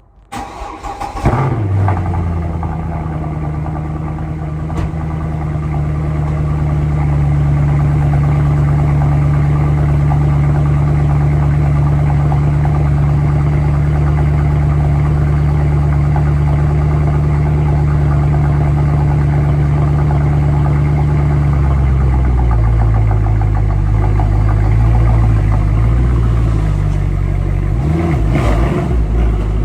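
Mercedes-AMG C63 engine cranking and starting with a quick rev flare, then running at a steady high idle. About three-quarters of the way through, the idle drops to a lower, lumpier note. A short blip of the throttle comes near the end.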